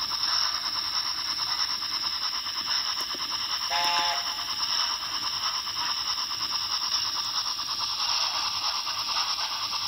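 Dapol model of 4468 Mallard running on a rolling road: a steady fast whirr from its motor and running gear turning the rollers. About four seconds in, a short tone sounds for under half a second.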